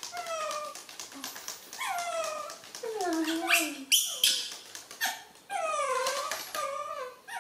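Baby macaques giving a string of high whimpering calls, most of them sliding down in pitch, about half a dozen in a row: hungry infants begging for milk.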